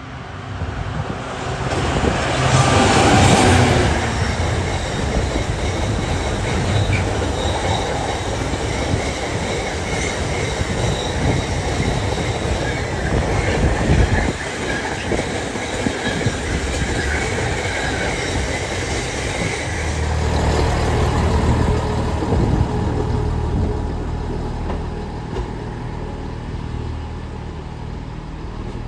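GB Railfreight Class 66 diesel locomotive's two-stroke V12 engine going past loudly about two to four seconds in, then the steady rumble and clatter of its container wagons rolling by, with thin wheel squeal on the pointwork. A steadier low hum comes in about two-thirds of the way through.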